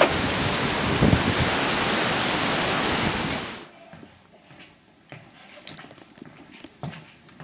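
Strong wind gusting over the microphone, a loud steady rush that cuts off abruptly about halfway through, leaving only faint scattered clicks and knocks.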